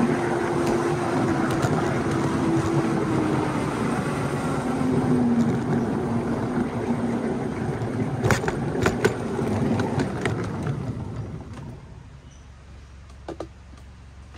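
Small ridable 7 1/4-inch gauge train rolling along the track, wheels rumbling and clattering on the rails with a whine that slides down in pitch as it slows. A few sharp clacks come about eight to nine seconds in, then the running noise dies away as the train comes to a stop.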